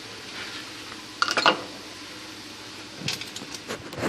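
Light clinking and clattering of kitchen items being handled, in two short clusters, just after a second in and again around three seconds, over a steady low hiss.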